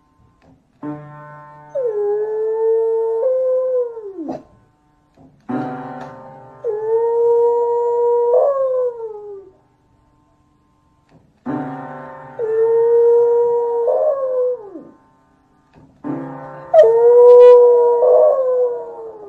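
A beagle pressing the keys of an electronic keyboard with its paw and howling along. Four times a keyboard chord sounds and the dog gives a long howl of a few seconds that rises a little and falls away at the end.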